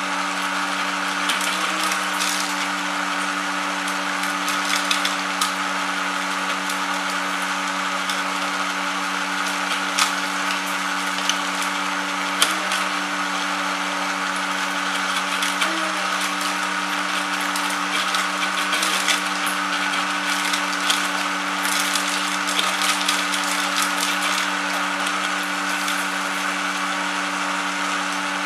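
Homemade kwaci (seed) husking machine running: its motor hums steadily at a constant pitch, with scattered sharp clicks and cracks as seeds go through it.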